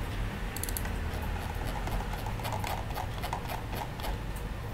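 Scattered clicks from a computer mouse, its buttons and scroll wheel, some in quick runs, over a low steady hum.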